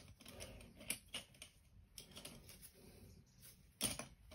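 Faint, scattered small clicks and taps of painting tools being handled, such as a paintbrush being picked up and set down, with one louder knock near the end.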